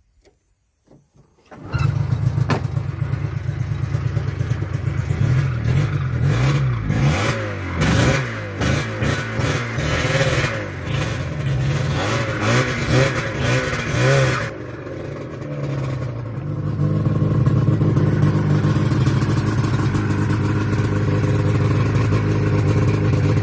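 Polaris XC snowmobile's two-stroke engine starting abruptly about a second and a half in, revved up and down repeatedly, then running steadily through the last several seconds.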